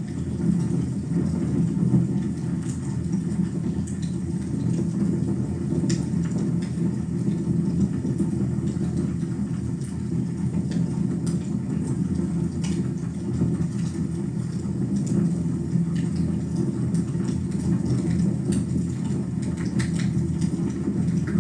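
Wood fire burning in a fireplace: a steady low rumble of flames with scattered sharp crackles and pops at irregular moments.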